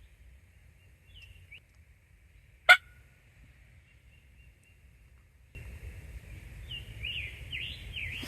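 Faint, distant wild turkey gobbling with chirping calls, over outdoor hiss that grows louder about two thirds of the way in. One sharp, loud click about a third of the way in is the loudest sound.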